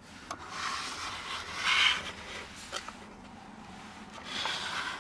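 Small plastic toy hangers being handled and hung on a toy counter's plastic clothes rack: rubbing and scraping with a few small clicks, loudest a little under two seconds in.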